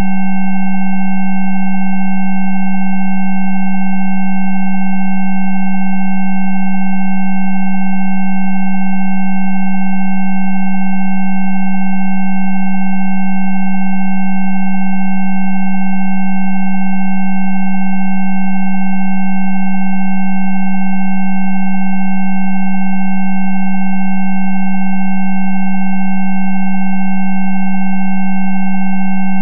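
Electronically generated Rife-therapy frequency tones: a loud, steady low tone with several fainter, higher pure tones held above it, unchanging throughout.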